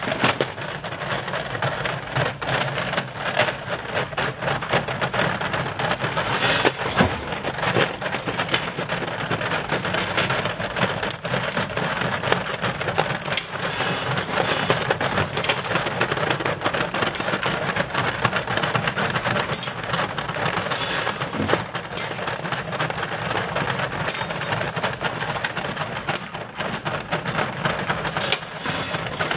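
Small stamped metal parts clattering against one another and the steel hopper as an inclined belt elevator feeder slowly lifts them out, a steady dense metallic rattle of many irregular clicks over a low machine hum.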